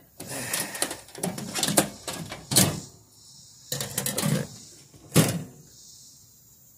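Irregular knocks, clatters and scrapes from handling the metal parts of a gutted microwave, several sharp hits over about five seconds.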